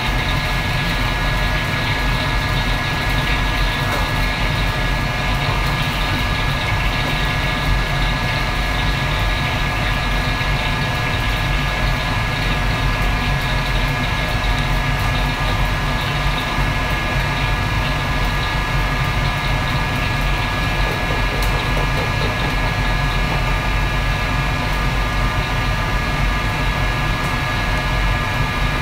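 Steady low roar of a commercial kitchen wok range and its extractor hood running, with a faint steady whine on top.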